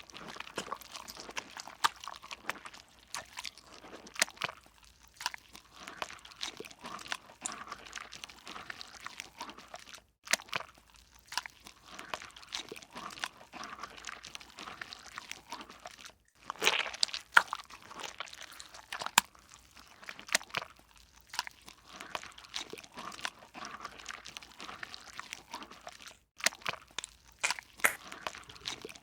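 Slime being squeezed and kneaded by hand: a dense run of irregular sticky crackles and small popping clicks, broken by a few short gaps.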